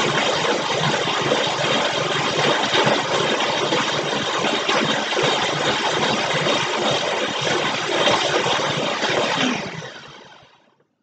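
High-powered countertop blender running loudly and steadily, blending spinach, banana, grapes and apple with water into a green smoothie, then spinning down and stopping about ten seconds in.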